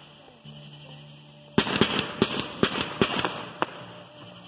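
Aerial fireworks going off in a quick run of about ten sharp bangs, roughly four a second, starting about a third of the way in.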